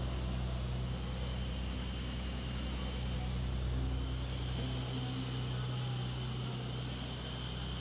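A boat's engine running steadily, a low drone with a faint high whine above it.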